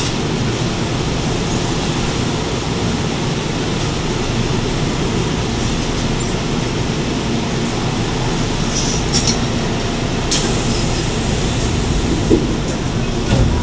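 Korail 3000-series electric multiple unit running on Seoul Subway Line 3: a steady rumble of wheels and motors, with a few sharp clicks from the track.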